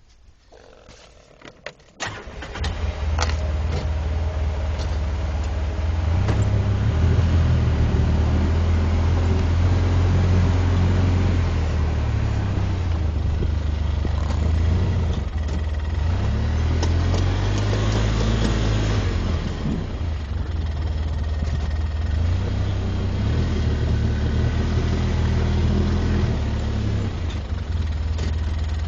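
A four-wheeler (ATV) engine starts about two seconds in and keeps running, its pitch rising and falling a few times as it is throttled up and down.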